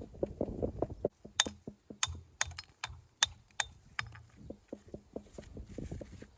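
Hard, sharp knocks of stone being worked: about seven crisp strikes in three seconds, among softer knocks and shuffling of stones.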